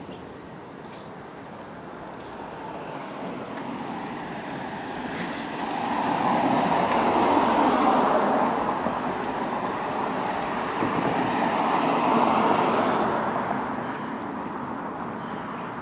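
Passing road traffic: tyre and engine noise of vehicles going by on the street swells to a peak about halfway through, dips, swells again and fades near the end.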